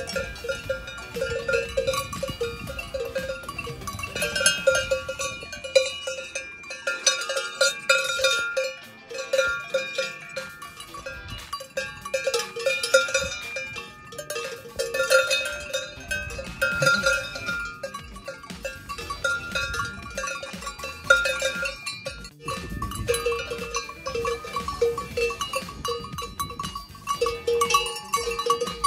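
Several livestock bells of different pitches clanking and ringing irregularly, as on grazing animals moving about.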